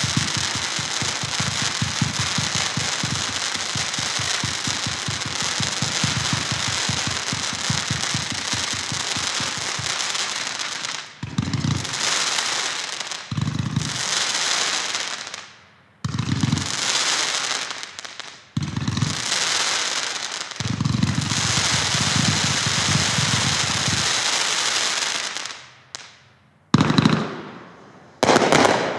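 The Ammo Crate 182-shot consumer fireworks cake firing rapid shots of glittering tails. For about the first ten seconds it is a dense, fast barrage of launch thumps over a steady hiss. After that it fires in short volleys of a second or two with brief gaps between them, and the loudest bursts come near the end.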